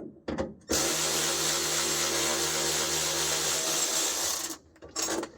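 Power drill running steadily for about four seconds, starting and stopping abruptly, used to work loose a stubborn fastener behind a dash; a few light clicks come just before it.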